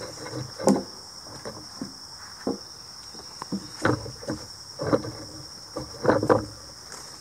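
A wooden board is handled and laid on a log, giving a series of dull knocks and thuds: one about a second in, a few in the middle, and a loud double knock near the end. A steady high insect buzz runs underneath.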